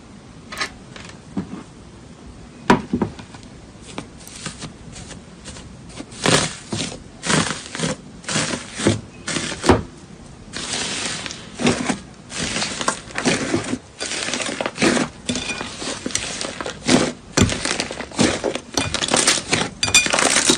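Slime being squeezed and pressed by hand, making an irregular run of short, sharp pops and clicks that come thicker in the second half.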